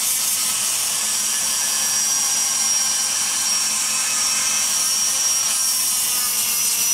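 Foot-pedal-controlled rotary grinder spinning a 36-grit abrasive sanding roll, grinding steadily inside the cast-aluminum exhaust port of an LS cylinder head. It makes a steady high whine over a hiss of grinding.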